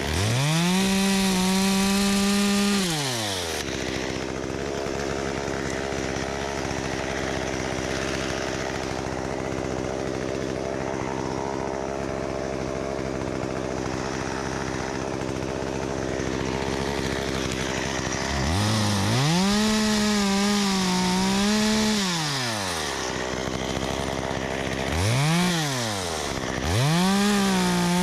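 Two-stroke chainsaw idling, opened up to full throttle four times: for about three seconds at the start, about four seconds in the back half, briefly once, and again near the end.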